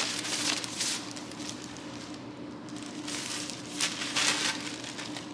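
Plastic packaging rustling and crinkling in a few short bursts as the paddle's parts are unwrapped.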